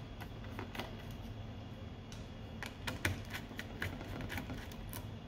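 A small screwdriver clicking and scraping on the cover screws of a Conner hard drive as they are backed out, with the loose screws clicking down on the bench: a run of irregular light clicks.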